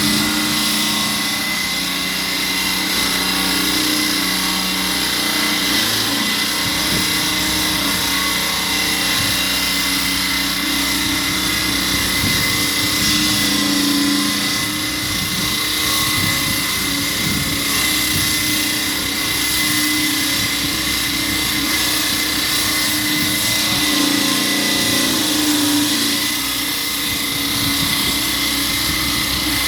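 Concrete cutting machine running steadily under load as it cuts, a continuous mechanical whine with a steady high tone.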